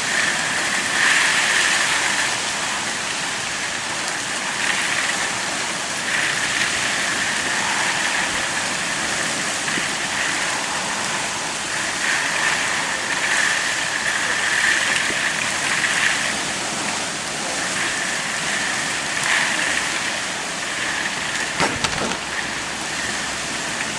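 Heavy thunderstorm rain pouring down, a steady hiss that swells and eases in surges, with a couple of sharp knocks near the end.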